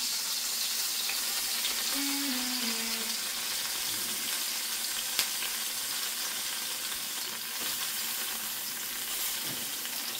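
Hot oil sizzling steadily in a cast iron skillet, with a spatula working in the pan and one sharp tap about five seconds in.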